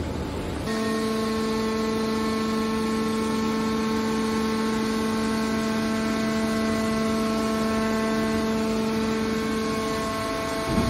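Hydraulic power unit of a scrap metal baler running, a steady droning hum with many overtones as its cylinder swings the compression lid down. It starts about a second in and fades near the end.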